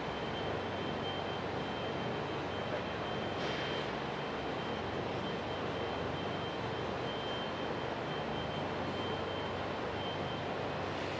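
Steady factory-floor noise of machinery and ventilation, an even hum with a thin high whine that stops shortly before the end and a brief hiss about three and a half seconds in.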